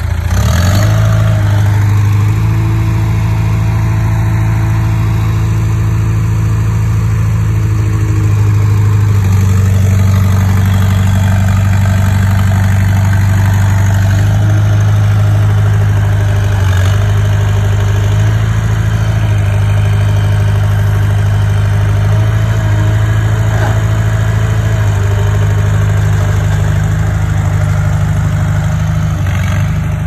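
Komatsu D20 bulldozer's diesel engine running steadily as the dozer pushes fill soil. Its note steps up and down a little every few seconds.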